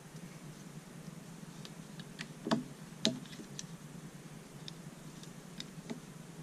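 Plastic Lego bricks clicking and snapping as they are worked apart and handled, a scatter of light clicks with two louder snaps around the middle.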